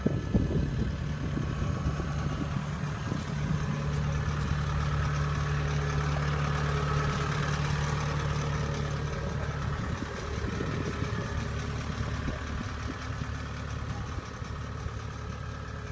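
Diesel engine of a Kubota tracked combine harvester running steadily, with a few knocks near the start. Its note grows stronger about four seconds in and eases back around ten seconds.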